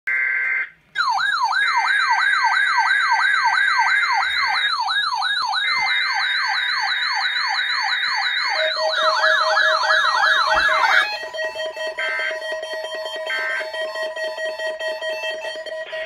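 Weather-alert radios going into alarm for a monthly test: a short two-tone data burst, then an electronic siren alarm sweeping up and down about two and a half times a second, speeding up near the end and stopping about eleven seconds in. A steady tone and a few short data bursts carry on after the siren stops.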